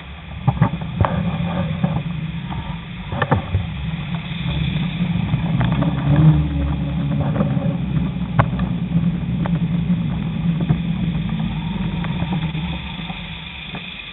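Road traffic heard from a moving bicycle: a steady low rumble of nearby car and van engines and tyres, with scattered short clicks, growing louder just after the start and quieter near the end.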